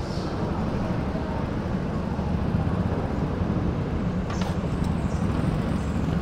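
Go-kart engine running steadily at low speed, with a faint click about four seconds in.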